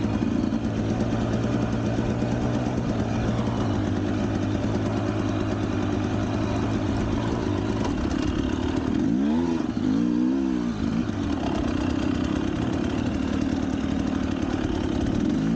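Motorcycle engine idling steadily, blipped up in revs and back down twice, about nine and ten seconds in.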